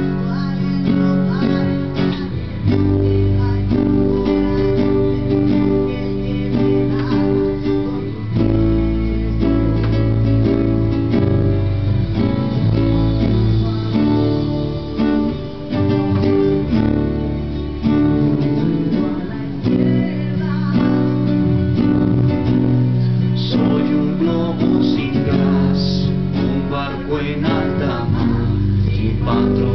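Acoustic guitar strummed in a steady rhythm, one guitar playing a run of rock-song chords.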